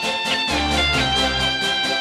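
Instrumental rock music: electric guitars playing over bass and a steady drum beat, with some notes sliding in pitch.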